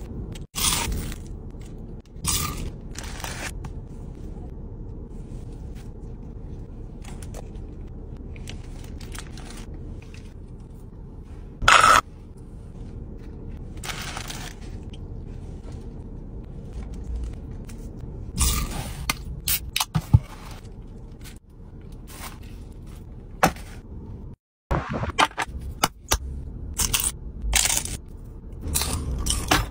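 Close-up eating and food-handling sounds: crunching bites, wrapper rustling and scrapes in short, separate bursts over a low steady background.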